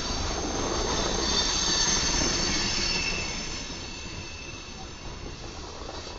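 Freight train of covered hopper cars rolling past, its steel wheels squealing on the rails in several steady high-pitched tones over a rumbling roll. The squeal is loudest in the first three seconds and fades after about four.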